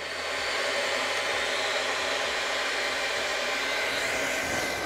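Hot-air plastic welding gun running, its air blowing with a steady hiss while HDPE welding rod is fed through it into a tank seam. The sound comes up to full level within the first half second.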